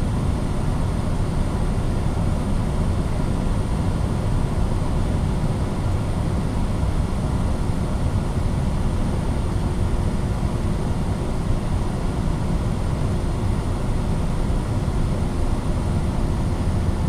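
Steady cockpit noise of a Cessna Citation Sovereign (680) business jet on final approach: a constant rush of airflow over the airframe with the hum of its rear-mounted turbofans, plus a faint steady tone underneath.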